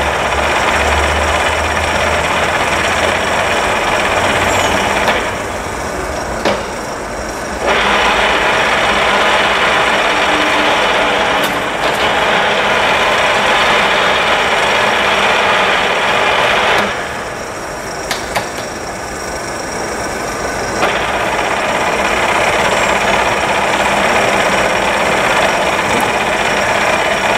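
Huron MU6 universal milling machine running under power: a loud, harsh, steady mechanical noise that stops about five seconds in, returns about three seconds later, stops again around seventeen seconds in and returns about four seconds after that.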